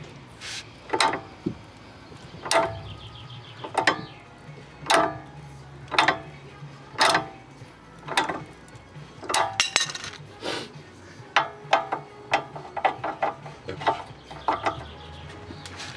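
Socket ratchet on a long extension being worked back and forth on a rust-seized suspension-arm bolt: sharp metallic clicks and clanks about once a second, with quicker runs of clicks about ten seconds in and near the end.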